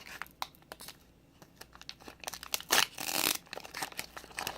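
Foil wrapper of a Pokémon card booster pack crinkling and rustling as it is handled, in scattered crackles with a louder burst of crinkling about three seconds in.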